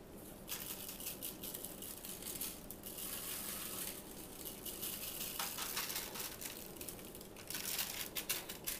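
Canister of Tony Chachere's Creole seasoning shaken over a raw turkey, the dry granules rattling in the shaker and falling onto the skin. A steady rattle lasts about five seconds, then after a short pause comes a run of quicker shakes near the end.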